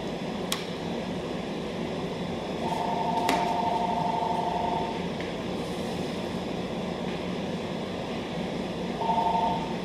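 A telephone ringing with an electronic two-tone trill: one ring of about two seconds, then a second ring starting near the end, over a steady hum of shop ventilation, with a couple of light clicks.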